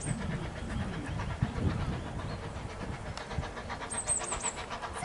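Narrow-gauge steam train running past with a continuous low rumble of wheels and carriages, and a few short high chirps about four seconds in.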